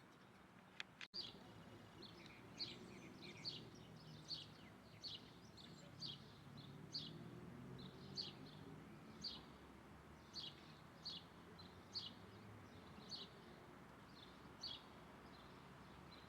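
A bird calling over and over: short, high chirps that fall slightly in pitch, about one a second.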